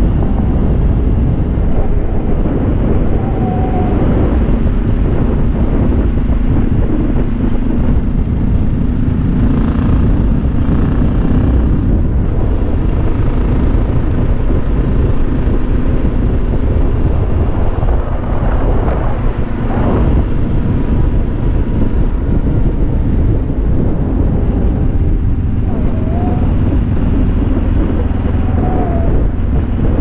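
Motorcycle riding at road speed: wind buffeting the bike-mounted camera's microphone over the steady drone of the motorcycle's engine.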